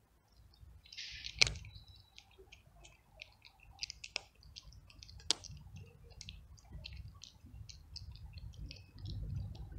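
A cat crunching dry kibble: a run of small, irregular, crisp clicks as it chews, with a few sharper cracks.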